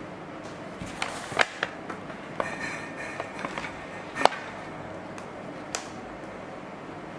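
A series of light metallic clicks and knocks with a short rattle as a wire cooling rack is handled and set down on a kitchen counter. The loudest knock comes about four seconds in.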